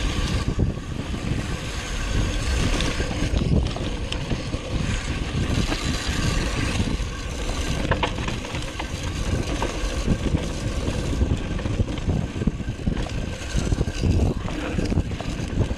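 Mountain bike descending a dry dirt singletrack: wind rushing over the microphone and knobby tyres rolling on the dirt, with frequent small clicks and rattles from the bike over bumps.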